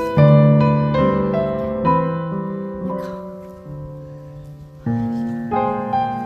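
Background piano music: a slow, gentle melody of struck notes, each left to ring and fade.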